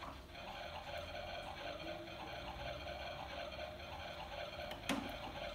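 Quiet room with a single light clack of plastic toy kitchen pieces being handled, about five seconds in.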